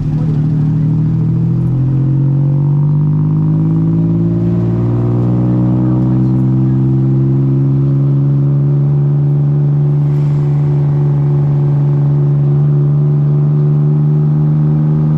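A vehicle's engine running, with the revs climbing gradually over the first few seconds as it picks up speed, then holding a steady drone.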